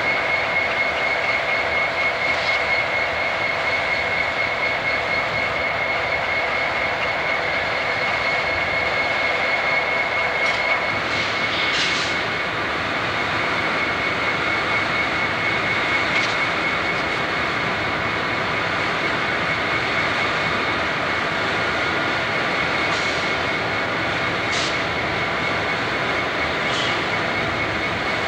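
Steady roar of diesel-electric locomotives running in a yard, with a high, steady whine through the first half that fades out about halfway, and a few faint clicks.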